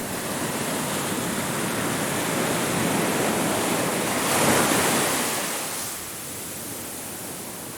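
Ocean waves washing onto a beach. A wave builds and breaks about four and a half seconds in, then falls back to a softer wash.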